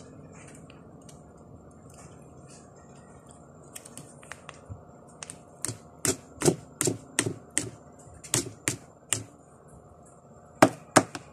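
Sharp clicks and taps from a foil wet-food pouch being handled, squeezed and tapped against plastic feeding bowls. They start a few seconds in, run at about two a second for several seconds, and two more loud ones come near the end.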